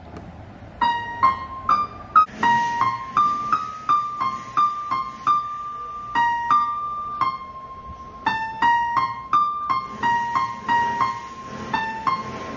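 Electronic keyboard on a piano voice playing a slow melody one note at a time, starting about a second in.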